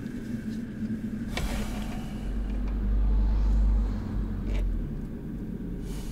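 Low steady vehicle rumble heard from inside a car's cabin, swelling for about a second and a half in the middle, with a faint knock about a second in and another just after the swell.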